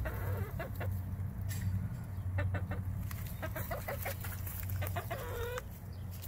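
Backyard hens clucking with short, scattered calls as they come to feed, with a longer drawn-out call about five seconds in.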